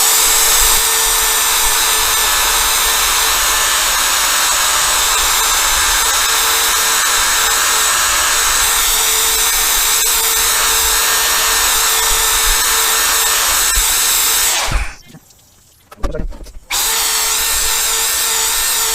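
Power drill spinning a wet 800-grit sanding pad against a windscreen, running at a steady speed with an even motor whine. It stops for about two seconds near the end, then starts again.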